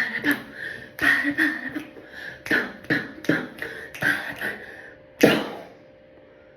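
A person making vocal sound effects: an irregular run of sharp clicks and pops, the loudest about five seconds in, after which they stop.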